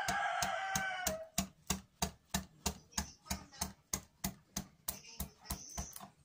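Steady taps on a 12 mm half-round carving gouge, about three a second, as it cuts a curved channel with the wood grain. A rooster crows in the background until about a second in.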